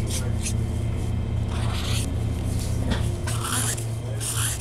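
Pen strokes scratching across sketchbook paper, three longer strokes in a row, over the steady low hum of a moving commuter train.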